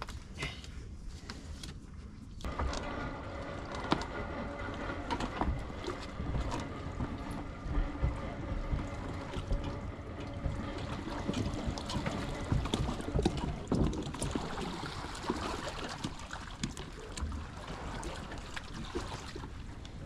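A boat trailer carrying a rigid inflatable boat being rolled by hand down a concrete slipway into the water, rattling and knocking. A steady whining tone sets in about two seconds in and fades out near the end.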